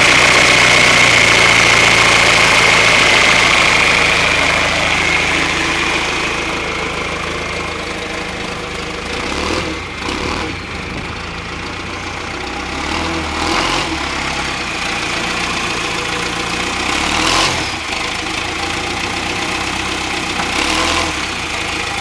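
John Deere 510C turbo diesel loader backhoe engine running, with a steady high whine over louder running for the first few seconds. It then settles to a lower idle, with a few short clunks here and there.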